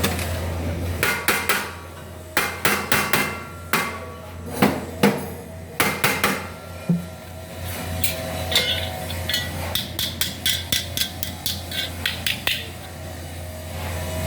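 Hammer blows on a sheet-metal air-conditioning duct: scattered single strikes and short runs, then a quicker run of about three or four ringing strikes a second near the end, over a steady low hum.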